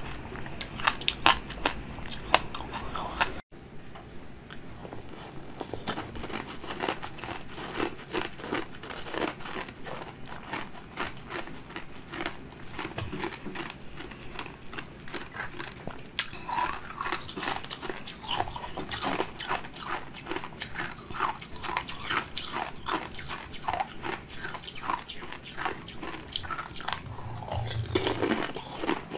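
Hard ice being bitten and chewed, sharp crunches and crackles in quick succession. The sound cuts out abruptly about three and a half seconds in. The crunching then resumes softer, growing louder and denser from about sixteen seconds in.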